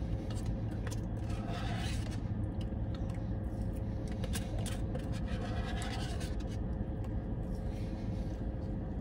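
A plastic spoon scraping and digging through thick milkshake in a paper cup, in short scrapes and small clicks, strongest twice, about two seconds and five seconds in. A steady low hum sits underneath.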